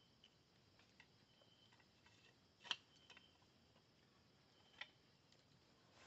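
Wood campfire crackling faintly under near silence, with two sharp pops, the louder about two and a half seconds in and another near five seconds in.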